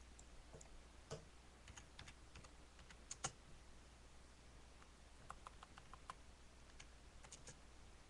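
Faint, scattered small clicks and ticks, with a sharper pair about three seconds in and a quick run of light ticks between about five and six seconds in.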